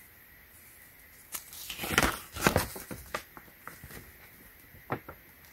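Folded paper quick start guide being unfolded by hand: a run of sharp paper rustles and crinkles, loudest about two seconds in, with quieter handling after and one more crisp snap of paper near the end.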